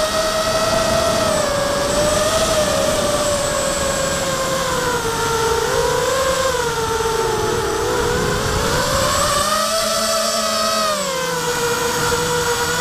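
Quadcopter's four 2204 brushless motors and propellers whining steadily, the pitch wavering with throttle, sagging lower about halfway through and climbing back up. The motors are driven by ESCs flashed with BLHeli and running OneShot125, and the sound is picked up by the camera on board.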